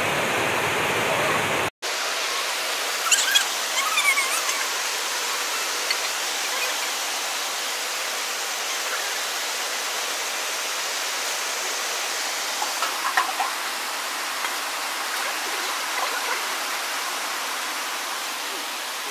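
Water poured from a steel pot, splashing steadily over a pig carcass lying on plastic sheeting. The sound cuts out briefly just under two seconds in, and a few short high sounds come through about three to four seconds in.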